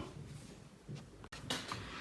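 Faint handling noises with a light click about a second and a half in, followed by soft rustling.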